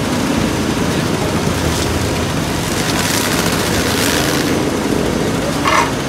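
XCMG RP803 asphalt paver running, its engine and drive making a loud, steady mechanical hum. A stretch of hissing comes about three seconds in, and a brief high-pitched sound near the end.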